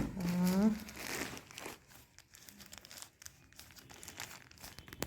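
Plastic parcel packaging crinkling and rustling as it is handled and opened, in many small irregular crackles. A short vocal sound comes in the first second.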